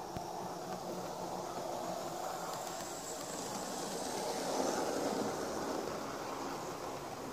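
Heljan Class 47 model diesel locomotive running along model railway track, a steady rumble of its running gear and wheels on the rails that swells a little past the middle as it passes close.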